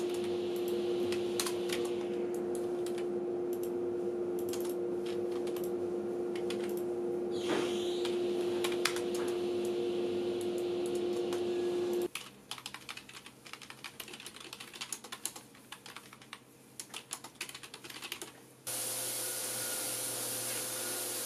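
Computer keyboard and mouse clicking over a steady hum. About twelve seconds in the hum stops and only quieter scattered clicks remain; near the end a steady hiss comes in.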